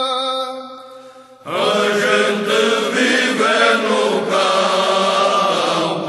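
Choir singing cante alentejano, the unaccompanied polyphonic folk song of Alentejo. A held chord fades out about a second in, and after a short pause the voices come in together on a new phrase.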